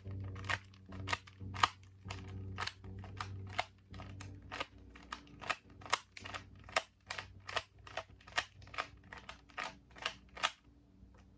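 Rubik's Cube layers being turned by hand, clicking sharply about two or three times a second in a quick, uneven run that stops about a second before the end.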